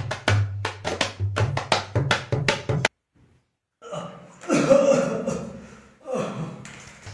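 A fast hand-drum beat with a deep bass drum tone that breaks off about three seconds in; after a short silence a person makes a drawn-out, fading vocal sound, and the drumming starts again at the very end.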